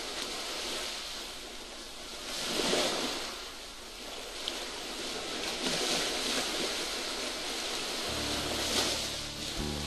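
Sea surf: waves breaking and washing in under a steady hiss, swelling three times. A low steady tone comes in near the end, and guitar music begins right at the close.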